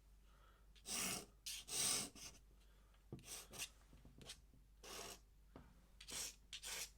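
Pen scratching across paper in a string of short, quick strokes, about ten of them, as an ink drawing is hatched and finished.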